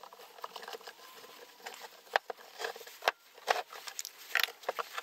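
PVC pipe fittings being dry-fitted and handled: irregular plastic clicks and knocks as pipe and elbows are pushed together and pulled apart.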